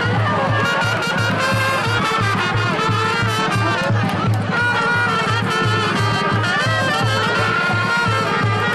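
Brass band music, trumpets playing a melody over a steady, regularly pulsing low beat.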